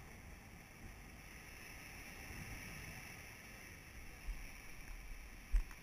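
Sea swell washing and breaking against the base of a rocky cliff, a steady rushing noise, with a short low thump near the end.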